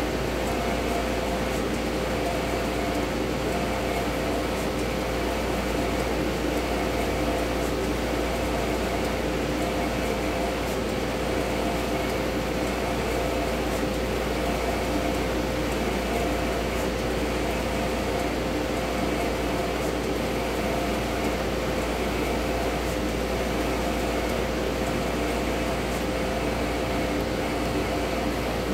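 Canon Océ Colorado 1650 UVgel wide-format printer running mid-print: a steady mechanical hum with a constant tone over it.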